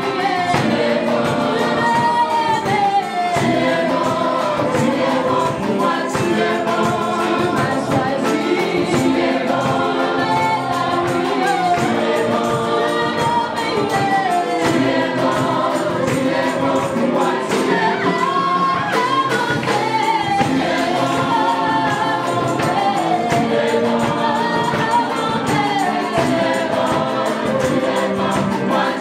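Live gospel praise song: a woman leads and backing voices sing into microphones over a band of keyboard, electric guitar and drums keeping a steady beat.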